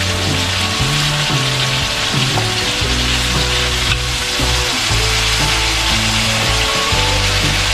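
Vegetables and shrimp sizzling in a hot wok, a steady hiss, with background music underneath.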